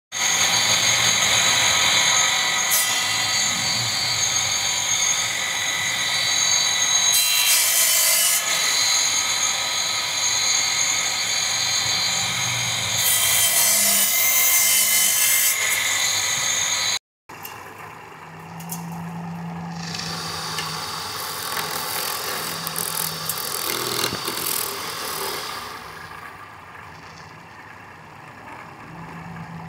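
Homemade motor-driven circular saw running with a steady high whine. It cuts into a log twice, about a quarter of the way in and again around the middle, and each cut is louder and rougher. The sound breaks off suddenly just past halfway, and quieter, unclear workshop noise follows.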